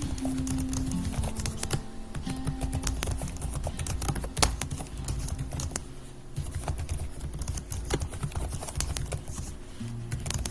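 Fast, irregular keystrokes of typing on a keyboard, over soft background music with held tones.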